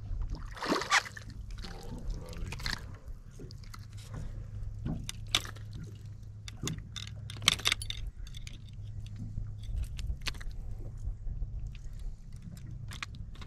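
A hooked horse mackerel splashing about a second in as it is brought up to the surface, then scattered sharp clicks and rattles as it wriggles on the hook and lure, over a steady low hum.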